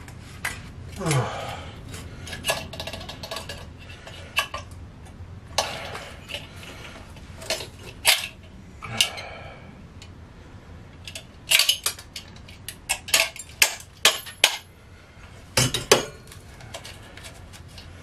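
Metal parts of a microwave oven magnetron clinking and knocking against each other and the workbench as it is taken apart by hand: scattered sharp clinks, a quick run of them in the last third, and a short falling squeal about a second in.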